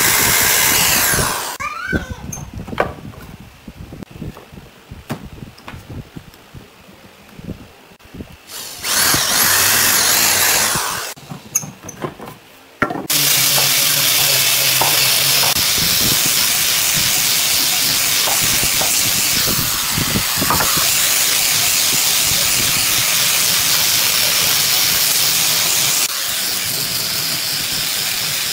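Corded electric drill boring into a wooden board, winding down about a second and a half in, followed by a few knocks and another brief power-tool run. A little before halfway, an angle grinder fitted with a sanding disc starts up and runs steadily, sanding the wood with an even rushing noise.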